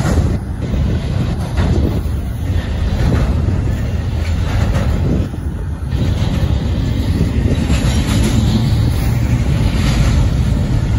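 Union Pacific double-stack intermodal freight train rolling past: a loud, steady rumble of steel wheels on the rails, broken by irregular clanks and clatter from the container well cars.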